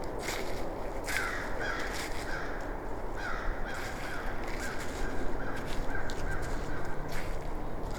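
A bird calling in a regular series of short, slightly falling calls, about two a second, starting about a second in and stopping near the end. Footsteps sound on the forest trail underneath.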